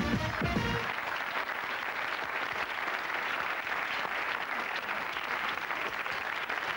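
Studio audience applauding steadily. Entrance music fades out about a second in.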